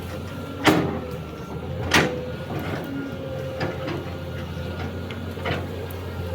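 Excavator engine running steadily with a faint hydraulic whine, broken by two loud sharp knocks about a second apart early on and a few lighter knocks later.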